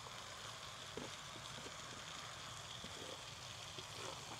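Bacon, paneer and vegetables frying in butter in a camping pot on a portable butane gas stove: a faint, steady sizzle. A few faint taps as basil leaves are scraped into the pot off a chopping board.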